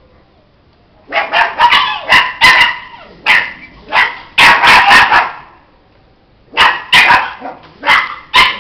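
Dog barking: a run of short, sharp barks starting about a second in, a pause of about a second, then a second run of barks near the end.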